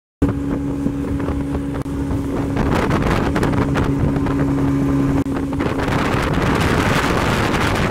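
Small motorboat underway at speed: the engine runs with a steady hum under wind on the microphone and water rushing past the hull. About two thirds of the way in, the engine hum fades beneath a broader rush of wind and water.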